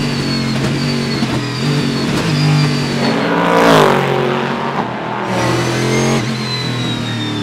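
Panoz Esperante GTR-1's 6-litre V8 race engine running at racing revs. About four seconds in it swells as the car goes past and its pitch drops as it moves away. Near the end the steady engine note heard from inside the cockpit returns.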